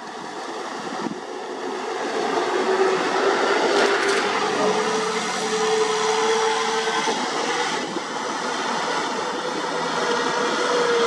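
Kubota M6040SU tractor's diesel engine running steadily under load as it drives a rear rotary tiller through deep paddy mud, with a steady whine over the engine. It gets louder about two seconds in as the tractor comes closer.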